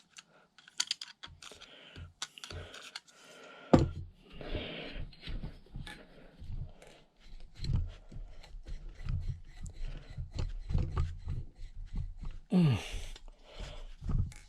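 Metal tools and small parts clicking and scraping on a Honda Z50 cylinder head as a stiff rocker shaft is worked loose, with a sharp knock about four seconds in and a run of scraping and dull thumps after it.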